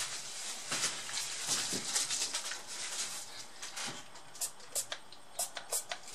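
Rustling of a tissue over a laptop motherboard, then four or five short hissing squirts from a spray bottle of isopropyl alcohol. The alcohol is being sprayed onto the old silicone thermal paste on the graphics chip to soften it for removal.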